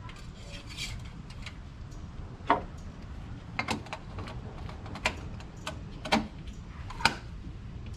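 Sharp clicks and knocks of the oil dipstick and oil filler cap being refitted and tightened in the engine bay of a 1983 Porsche 911SC. About five clicks come roughly a second apart, over a low steady hum.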